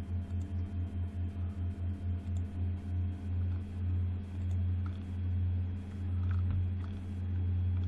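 Low electrical hum in the recording, like mains hum, pulsing about four times a second at first and slowing to a slow swell every second or so. A few faint clicks come in the second half.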